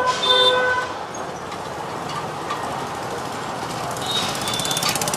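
Motorcycle engine running, with a rapid, even pulsing from about four seconds in.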